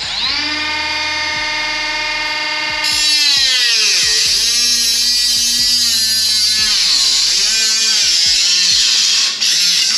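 Small high-speed power tool cutting a screen-door frame rail. The motor runs steady and freely for about three seconds. Then its pitch drops and wavers under load while a harsh, high-pitched grinding noise of the cut comes in, and the tool stops at the end.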